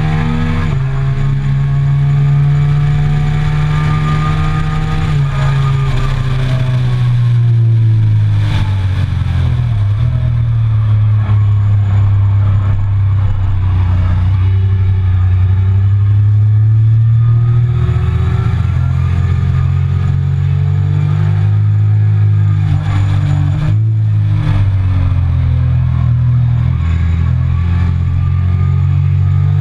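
Onboard sound of a Triumph Speed Triple 1050's three-cylinder engine on track, stepping down through the gears as it brakes from high speed into a corner, running low through the bend, then pulling and revving up again, with a short break in the pitch near the end from a gearshift. Wind rushes over the microphone throughout.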